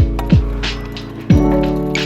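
Background music with a deep, booming kick-drum beat over sustained synth chords.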